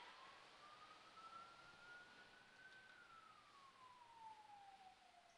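Faint siren, its single wailing tone rising slowly in pitch for about three seconds, then falling again and starting another rise near the end.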